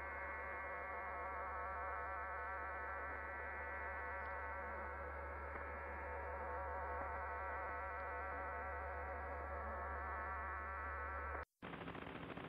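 US Air Force voice-frequency telegraphy data multiplex signal as heard on a radio: many steady audio tones sounding at once, a dense buzzing chord over a low hum. It cuts off about eleven and a half seconds in, and after a brief gap a LORAN-C navigation signal begins, noisier and hissing.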